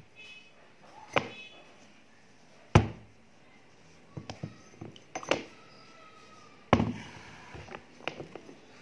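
A thermos flask and a glass mug being handled on a table while hot water is poured: a series of sharp knocks and clinks, the loudest about three seconds in, with others in a cluster between four and five and a half seconds and again near seven and eight seconds.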